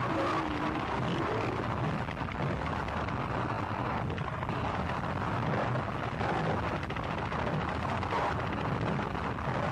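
Gorenoise recording: a dense, unbroken wall of distorted noise with a heavy low rumble and no clear tune or beat.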